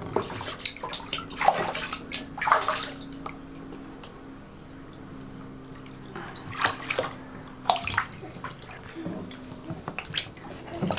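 Bathwater splashing and sloshing as a baby plays in a bathtub, in irregular splashes, with a quieter stretch in the middle.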